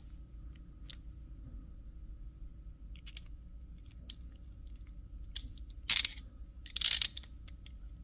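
Stainless steel ASP Sentry handcuff and key being worked at the lock: a few faint metallic clicks, then two louder short scraping clicks about a second apart in the second half, as the double lock is set.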